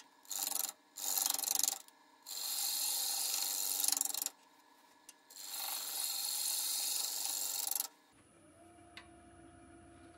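A gouge cutting a spinning stone pine blank on a wood lathe, in four cuts of about half a second to two and a half seconds each, with the lathe motor humming steadily between them. About eight seconds in the cutting stops and only the lathe's motor whine is left.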